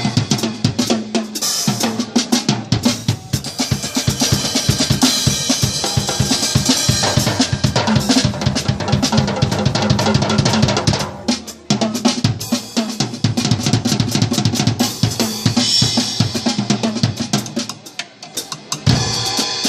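Two Percubo compact drum kits, one built into a suitcase, played together in a fast drum jam: dense bass drum and snare hits with rimshots. The playing drops away briefly about halfway through and again shortly before the end.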